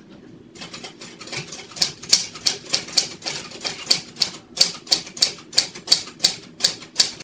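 Typewriter keys struck in a quick, uneven run of sharp clacks, starting about half a second in and growing louder, then cutting off abruptly.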